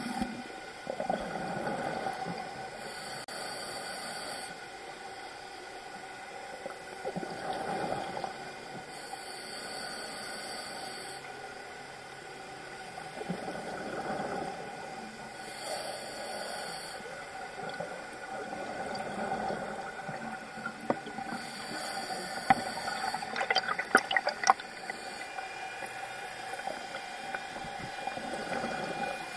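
A scuba regulator breathing underwater in a slow cycle. About every six seconds a high hiss of inhalation alternates with a rush of exhaled bubbles. A faint steady whine runs underneath, and a quick run of sharp clicks comes about three quarters of the way through.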